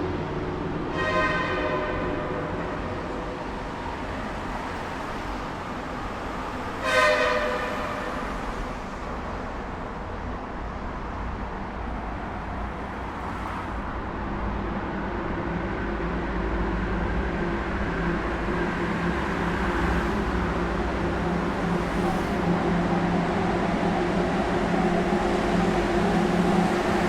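Road traffic inside a highway tunnel: a steady rumble of passing vehicles, broken by two vehicle horn blasts of about a second each, one near the start and one about seven seconds in, the second the louder. From about halfway on, a vehicle engine's steady note builds and grows louder toward the end.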